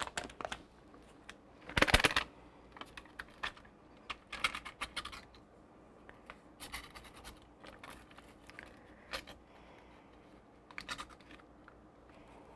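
Irregular scraping and tapping as vegetable shortening is pushed by hand out of a plastic measuring cup into a stainless steel mixing bowl, with a louder clatter about two seconds in.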